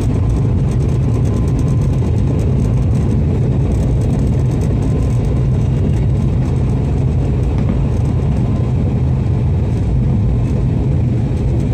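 Turboprop airliner engine and six-bladed propeller running at steady low power, heard from inside the cabin: a loud, even, low hum that does not rise or fall.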